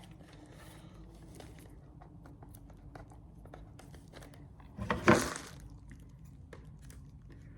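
Plastic shrink wrap on a VHS tape case being handled and torn off: small crinkles and clicks, then one loud tearing rasp about five seconds in.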